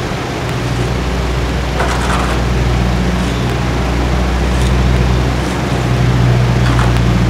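Steady low drone of a running engine or motor, with two short higher-pitched scraping sounds over it, about two seconds in and near the end.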